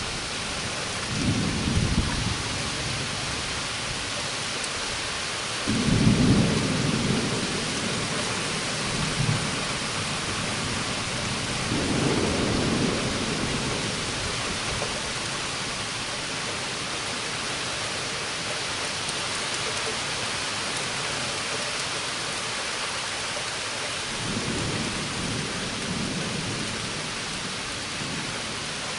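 Thunderstorm: steady rain with four low rolls of thunder, the loudest about six seconds in, the others about a second in, around twelve seconds and near the end.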